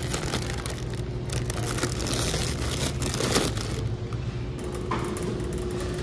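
Plastic potato-chip bag crinkling as it is handled, over a steady low hum; the crinkling dies down about four seconds in.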